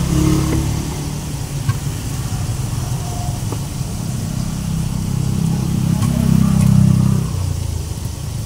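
A steady low rumble that swells about six seconds in and then drops back, with a few light taps of a kitchen knife slicing cucumber against a wooden chopping block.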